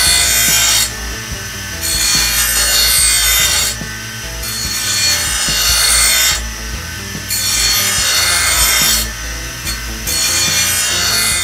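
A hand tool rasping in slow, repeated strokes, each lasting one to two seconds, with short pauses between them.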